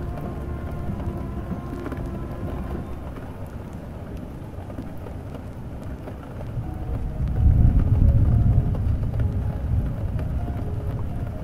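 Steady rain with a low roll of thunder that builds about six or seven seconds in and slowly fades, over faint music.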